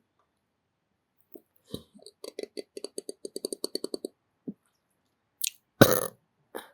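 A person burping close to the microphone: a rapid stuttering run of short burps, about eight a second for some two seconds, then a few separate burps, the loudest one near the end.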